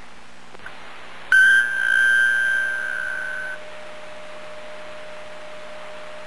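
A steady high-pitched electronic squeal starts suddenly over constant radio hiss and holds for about two seconds before cutting off. A fainter lower tone carries on underneath. This is the squeal the operators get from the CB radio setup when the mic gain is turned up.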